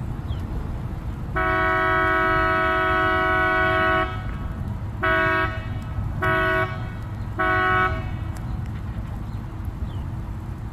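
Tour boat's horn giving four blasts as a departure signal: one long blast, then three short ones about a second apart.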